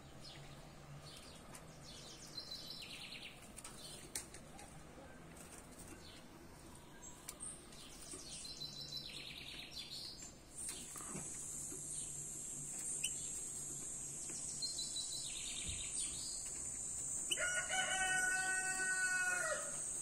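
Songbirds calling outdoors in short, rapid trilled phrases, repeated a few times. About halfway through, a steady high-pitched insect buzz starts and carries on. Near the end a rooster crows once for about two seconds, the loudest sound.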